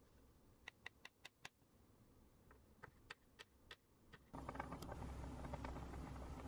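Kitchen knife chopping cucumber on a wooden cutting board: two quick runs of sharp taps. About four seconds in it gives way to a pot of noodles and vegetables at a rolling boil, a steady bubbling hiss.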